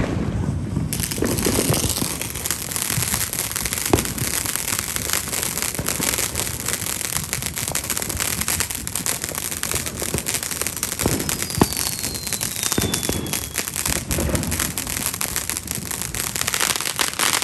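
Consumer fireworks crackling densely and continuously, with a few sharper pops and a faint falling whistle partway through.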